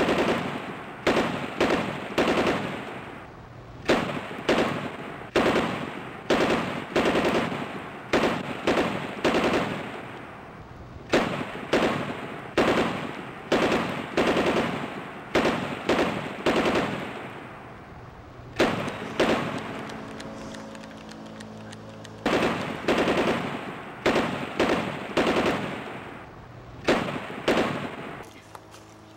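A rapid series of sharp bangs, about two a second, each dying away with a ringing tail. They come in runs with short breaks, fall away for a few seconds about two-thirds of the way in, then pick up again.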